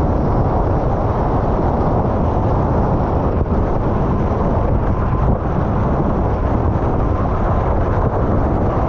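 Steady low rumble of wind buffeting an action camera's microphone, with rushing water, as a windsurf board planes at high speed.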